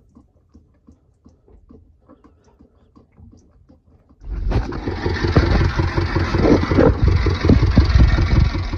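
Small inboard marine diesel engine running with a steady, rapid knock, starting abruptly about four seconds in, just after its fuel system has been bled of air. Before that, only faint clicks.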